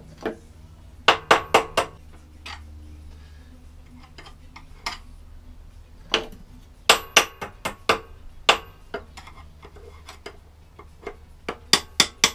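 Hammer tapping a screwdriver to drive the small key out of the keyway in a lawnmower engine's crankshaft: sharp metallic taps in three bursts, the last near the end.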